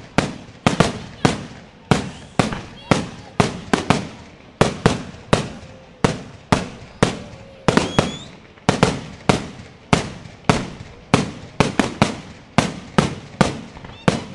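Aerial fireworks shells bursting in a rapid barrage, about two sharp bangs a second, each dying away in a short echoing tail. A brief rising whistle sounds about halfway through.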